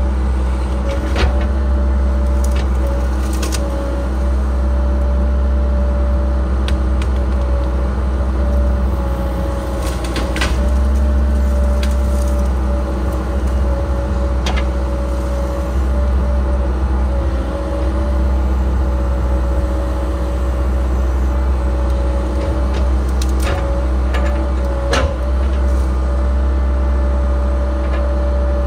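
Cat 306 excavator's diesel engine running steadily under working load, heard from inside the cab: a low drone with a steady higher whine. About ten short, sharp cracks and knocks come scattered through it as brush is handled.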